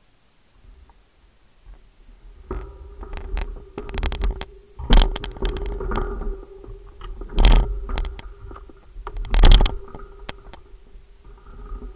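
Bicycle rolling along a gravel track, with wind rumbling on the handlebar camera's microphone and a steady hum under it. Sharp knocks and rattles come as it goes over bumps, loudest about five, seven and a half and nine and a half seconds in; the sound starts faint and builds over the first couple of seconds.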